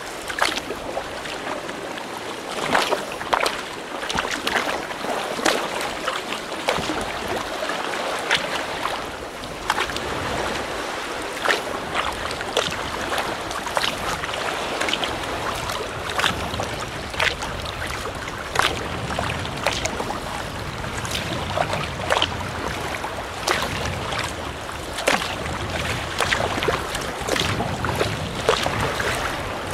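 Sea kayak paddling through choppy water: the paddle blades splash in, about once a second, over a steady wash of water against the hull and some wind on the microphone.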